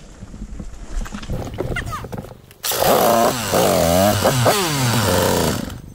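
Dirt bike engine revving close by. It is quieter for the first couple of seconds, then revs loud with the pitch rising and falling repeatedly, and stops abruptly near the end.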